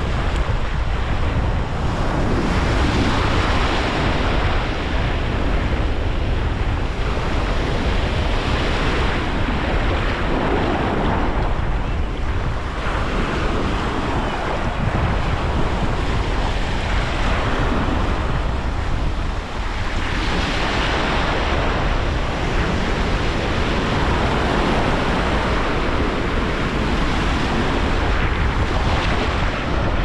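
Atlantic surf breaking and washing up the beach, swelling every few seconds, with wind rumbling on the microphone.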